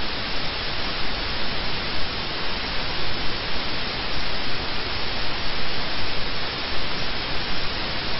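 Steady hiss of static noise, even and unbroken, with no other sound in it.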